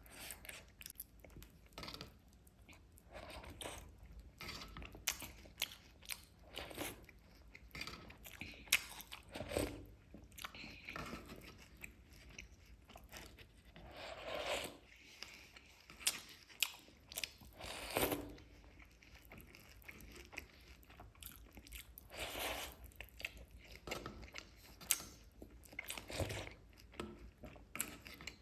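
Close-miked eating: crunchy chocolate cereal being bitten and chewed, with irregular sharp crackling crunches and soft wet mouth sounds.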